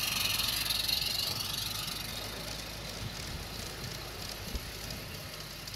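16mm-scale live steam locomotive running past on a garden railway with a steady hiss of steam, fading slowly as it moves away, and a single light knock near the end.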